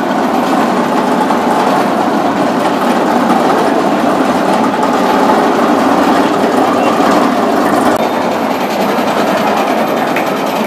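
Roller coaster train running along its track, loud and steady.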